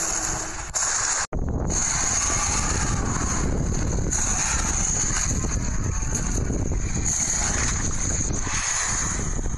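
Wind rumbling and buffeting on the microphone, a steady noisy rush that breaks off for an instant about a second in.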